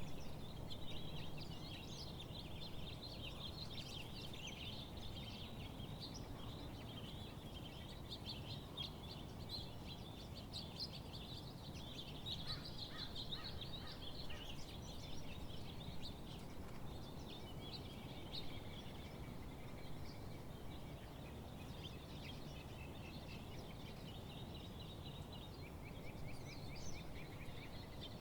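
Several songbirds singing and chirping continuously, rapid high chirps and trills overlapping one another, over a steady low background rumble of outdoor ambience.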